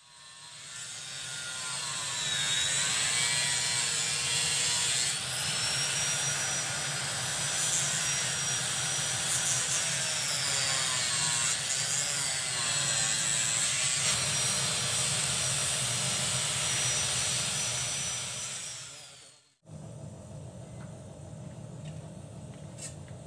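Handheld power tool working on material, its motor whine dipping and recovering as it takes load. It cuts off abruptly near the end, leaving a quieter steady hum.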